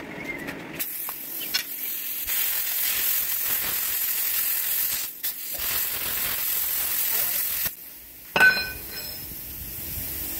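Handheld plasma cutter cutting through steel plate: a loud, steady hiss of the arc and air for about seven seconds, with a brief break partway through. Near the end a sharp metallic clank with ringing as the cut-off steel strip drops onto the concrete, then a quieter hiss of air.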